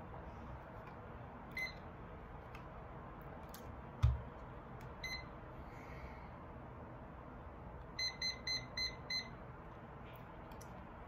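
Button-press beeps from a digital countdown timer as its time is set: single short beeps about one and a half and five seconds in, then a quick run of five beeps about eight seconds in. A dull thump about four seconds in is the loudest sound.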